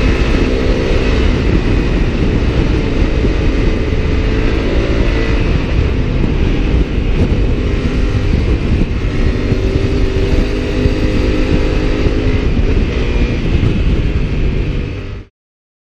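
Honda CRF1000L Africa Twin's parallel-twin engine heard onboard at high speed under heavy wind buffeting on the microphone, the bike slowing from just over 200 km/h. The engine note falls in pitch in the first couple of seconds and comes up again a little past halfway, and the sound cuts off suddenly near the end.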